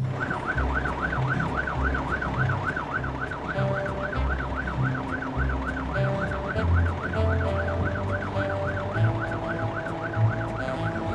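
Cartoon fire truck siren, a fast warble rising and falling about four times a second without a break, over background music.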